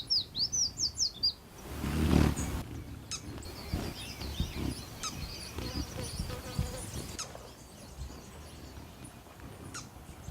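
Small birds chirping in a quick, high series at the start, then fainter scattered chirps. A low buzzing hum swells and fades about two seconds in.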